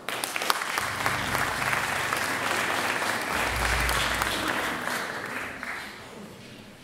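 Audience applauding. The clapping starts at once, holds for about five seconds, then dies away.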